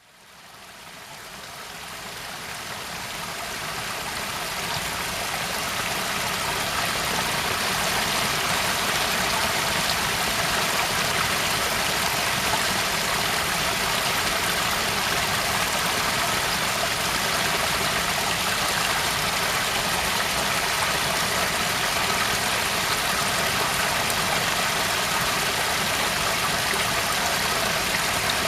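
Waterfall rushing: a steady, even rush of falling water that fades in from silence over the first six or seven seconds, then holds at a constant level.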